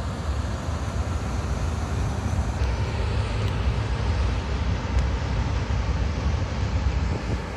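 Diesel shunting locomotives moving through a rail yard: a steady low engine rumble.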